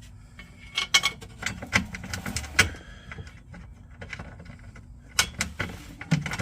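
Sharp metallic clinks and rattles of bolts and hand tools being handled, in several clusters of quick knocks, as 13 mm bolts are fitted.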